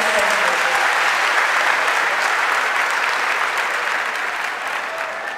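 Large audience applauding: dense, even clapping that eases off slightly near the end.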